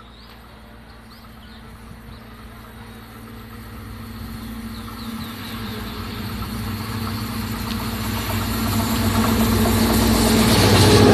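Diesel multiple-unit (DEMU) train approaching along the track: a steady engine hum with rail noise, growing steadily louder and loudest near the end.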